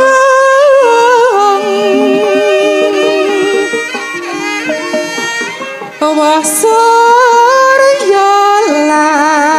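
A male sinden singing a Javanese song in a high, female-like voice, with wavering vibrato on long held notes, over gamelan accompaniment.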